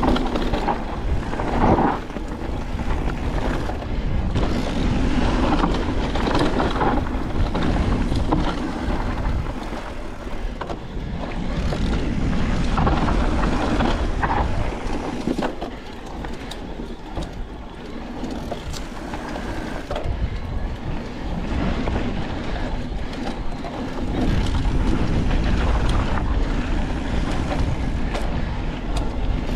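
Niner WFO e9 electric mountain bike riding a rough dirt trail: a steady rumble of tyres on dirt and rock, with irregular clattering and knocks from the bike over bumps.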